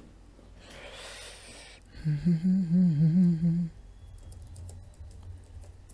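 A person hums a short wavering tune for about a second and a half, after a brief breathy sound. A faint steady low hum runs underneath, with a few faint clicks near the end.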